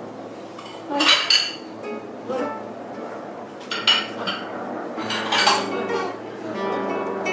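Acoustic guitar being played softly, with sharp clinking and clattering, like hard objects knocked together, breaking in loudly about a second in, near four seconds and again around five and a half seconds.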